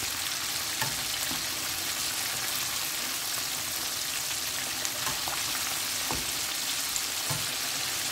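Flour-coated chicken wings deep-frying in hot oil in a wok on medium heat: a steady, even sizzle with a few faint clicks.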